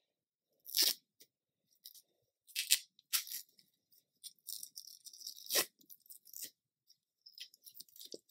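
Clear adhesive tape being peeled off a rolled cloth sail: a series of short crackling rips, with a longer peel near the middle.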